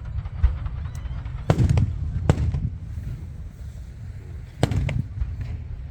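Fireworks bursting overhead: a few sharp bangs about a second and a half in, another shortly after, and a quick double bang near the end, over a steady low background rumble.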